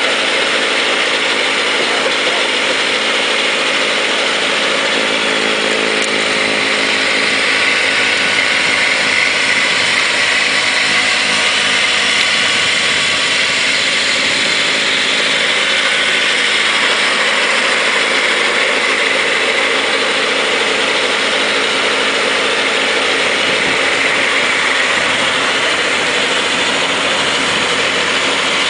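Kubota B3030 compact tractor's three-cylinder diesel engine running steadily under load while its front-mounted snowblower churns and throws snow, a continuous mechanical rush over the engine's hum.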